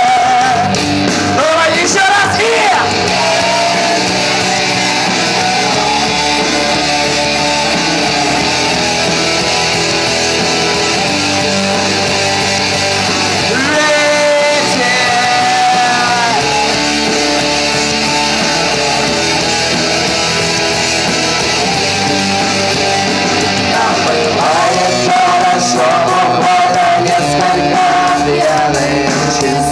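Live rock band playing an instrumental break between verses: a lead guitar line with bent notes over the rhythm section.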